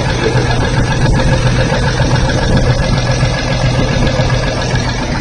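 6TW inline six-cylinder diesel truck engine idling steadily.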